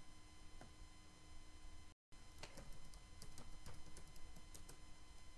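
Faint computer keyboard keystrokes: irregular clicks as a search term is typed, over a faint steady hum, with a brief cut to total silence about two seconds in.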